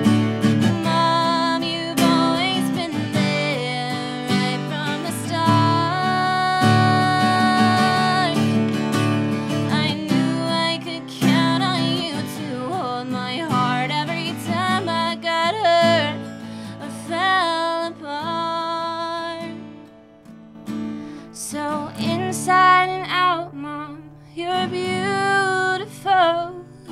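A woman singing a slow song to her own acoustic guitar, live, with a short break in the voice about three-quarters of the way through.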